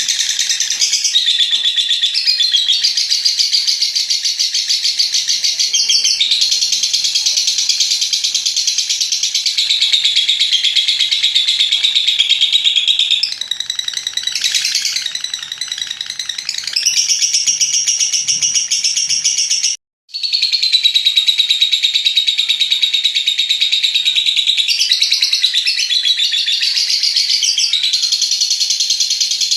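Lovebird's long 'ngekek' song: an unbroken, fast, shrill stream of chattering notes. It breaks off for an instant about twenty seconds in, then carries on.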